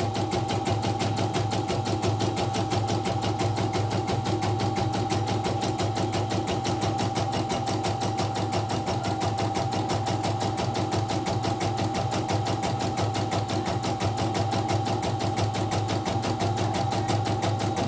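CNY portable embroidery machine stitching a design: a fast, even rhythm of needle strokes over a steady motor hum. It has been serviced for running stiff and rattling, with the belt to its motor replaced, and now runs without trouble.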